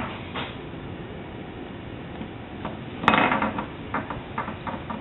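A click at the start, then a loud clatter about three seconds in, followed by about five lighter knocks, like small hard objects being handled or set down.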